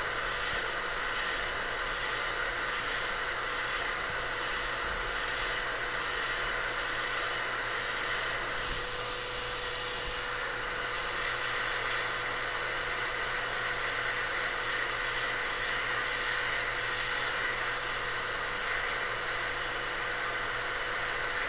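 Hot air rework station blowing a steady stream of air, a constant hiss with a steady hum under it, as it heats a NAND flash chip on an iPhone XR logic board to melt the solder for the chip's removal.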